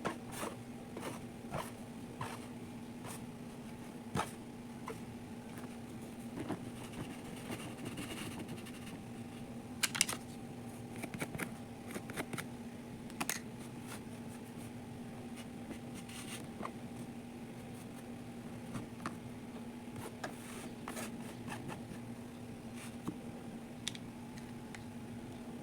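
Kinetic sand being handled and scraped: irregular soft scratches and small clicks, over a steady low hum.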